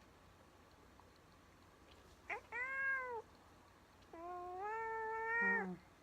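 Domestic cat meowing twice: a short meow that rises and falls about two seconds in, then a longer, drawn-out meow that drops to a low note at its end.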